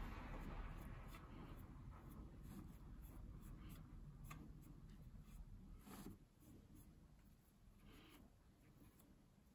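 Faint, scratchy rubbing of fingertips over sawdust and the bare wood at the bottom of a large Forstner-bit hole, with a few soft ticks, growing fainter toward the end.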